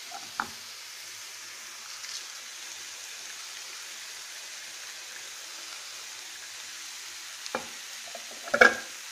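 Oil sizzling steadily in a frying pan with soaked split moong dal, grated coconut and dried red chillies frying in it. A few sharp knocks break the sizzle, the loudest near the end.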